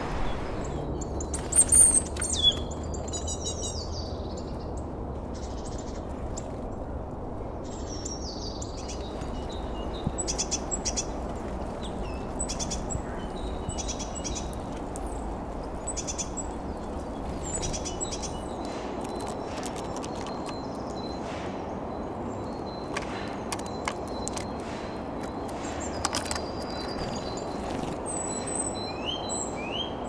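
Eurasian nuthatches and great tits at a wooden seed feeder: short high chirps and calls, loudest in a burst about two seconds in, with scattered sharp clicks as they peck at seed, over a steady low background noise.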